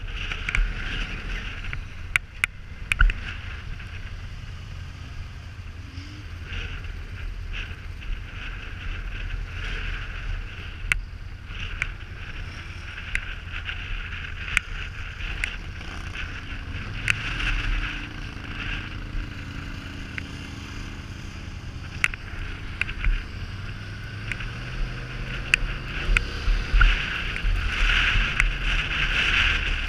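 Polaris Sportsman 850 ATV engine running with a low rumble under wind hiss, with scattered sharp knocks and rattles. From a little past halfway the engine pitch rises and shifts as the quad pulls away along the dirt trail.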